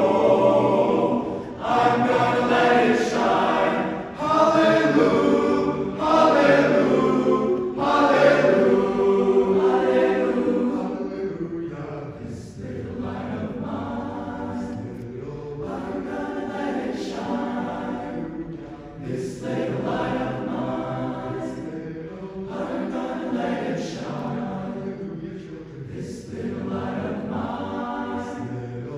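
A choir singing as background music, fuller and louder for about the first ten seconds, then softer.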